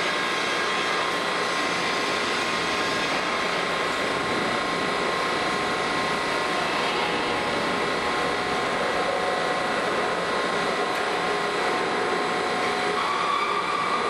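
Plate rolling machine running, its rolls turning as they bend a thick steel plate into a cylinder: a steady mechanical drone of the drive and rolls, with a higher whine joining near the end.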